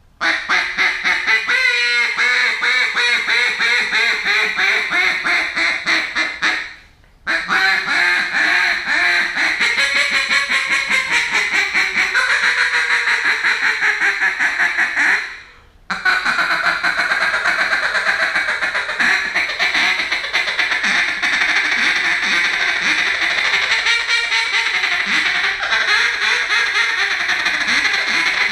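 Landn'Gear Calls Sassy Susie single-reed duck call blown by mouth in long runs of rapid quacks, broken twice by short pauses.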